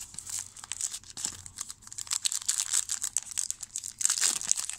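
A trading-card pack wrapper crinkling and tearing as it is ripped open by hand, a dense run of fast crackles that is loudest a little past four seconds in.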